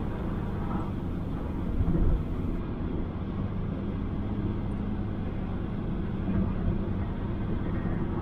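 Steady engine, tyre and wind noise of a 2006 Toyota Innova with the 2.5-litre 2KD four-cylinder turbodiesel, cruising at around 140 km/h: a continuous low hum with a brief swell about two seconds in.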